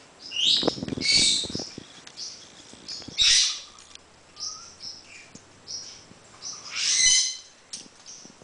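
An African grey parrot gives three short bursts of high calls and squawks, spread a few seconds apart. During the first burst there are a few sharp clicks and cracks of a wooden toy being chewed.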